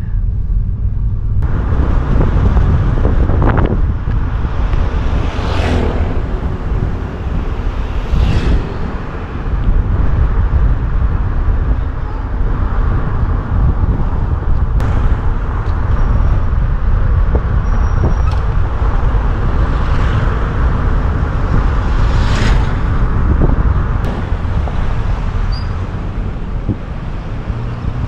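Road noise from a moving vehicle: a steady low rumble, with other vehicles whooshing past three times.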